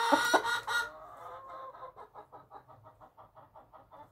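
A hen on a person's lap calling: a loud drawn-out squawk that breaks off about a second in, then a run of soft quick clucks, about five a second.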